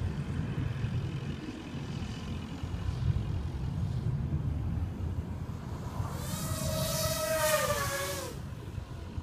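250-class FPV racing quadcopter passing close by: its motors and propellers whine loudly from about six to eight seconds in, the pitch rising and then dropping as it goes past. A steady low rumble lies under it throughout.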